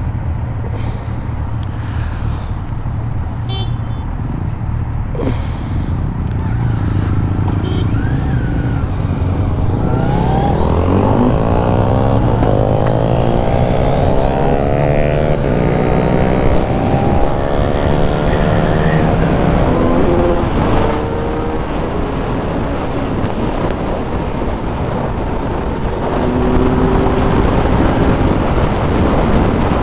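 Kawasaki Z900 inline-four engine pulling away gently, then accelerating hard through the gears from about ten seconds in, revs climbing and dropping back at each upshift. In the last third it holds a steady high-speed cruise at about 165 km/h in fifth gear, with wind rush over the engine.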